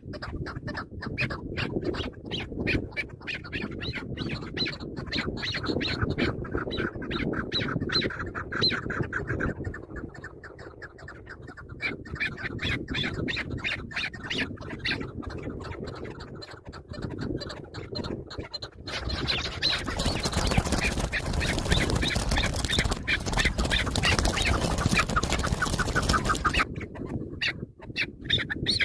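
Chukar partridges calling: long runs of rapid, repeated clucking notes, several a second. A loud rushing noise covers them for about seven seconds, two-thirds of the way through.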